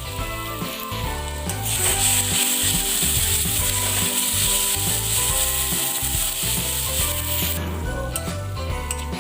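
Food sizzling in hot oil, a loud hiss that starts about two seconds in and stops abruptly near the end, over background music with a steady bass beat.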